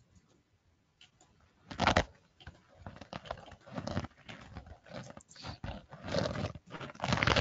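Computer keyboard typing a login name and password, a quick run of keystrokes mixed with several louder short bursts, the loudest about two seconds in.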